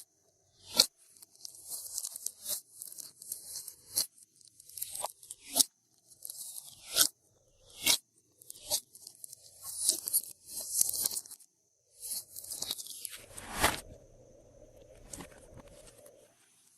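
Glossy slime being squished and stretched by hand, with a dense wet crackle and several sharp air-bubble pops. The crackle gives way to a faint steady hum near the end.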